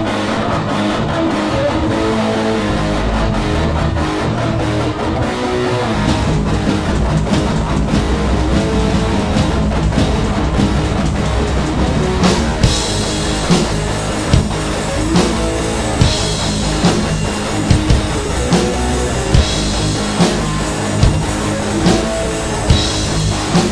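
Rock band playing an instrumental passage on electric guitar and drum kit, with no singing. About halfway through, the drums hit harder, with strong drum-and-cymbal accents about once a second.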